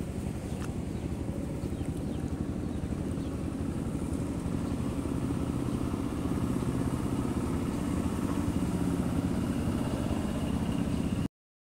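A small engine running steadily with a rapid, even pulse, getting somewhat louder in the second half. It cuts out suddenly just before the end.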